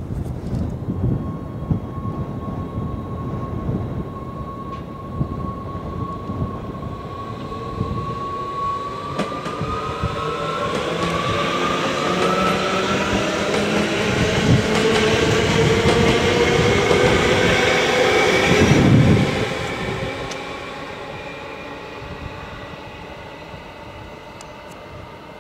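NS Sprinter Light Train electric multiple unit pulling away and accelerating past. Its traction motors give a steady whine that starts rising in pitch about nine seconds in, over low knocking from the wheels on the track. The sound is loudest as the train goes by and dies away over the last few seconds.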